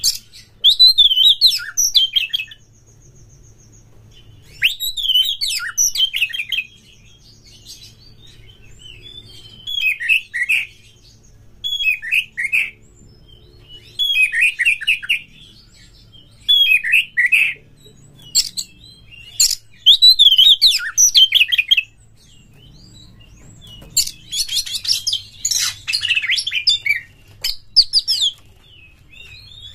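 Oriental magpie-robin singing in short bursts of quick, varied whistled and chattering phrases, one every two to three seconds. About three-quarters of the way through comes a longer, harsher, rasping stretch.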